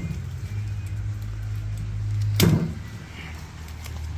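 A motor vehicle's engine idling with a steady low hum, and a single sharp knock about two and a half seconds in.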